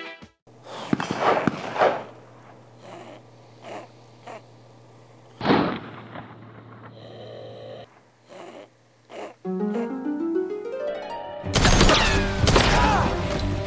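Edited music and sound effects: several short whooshing hits in the first half, a rising run of tones about three-quarters of the way through, then a loud, dense swell near the end.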